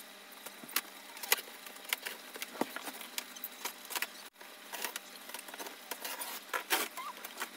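Box cutter slitting packing tape and cardboard along a large carton, and the cardboard flaps being pulled open, giving scattered sharp clicks and crackles.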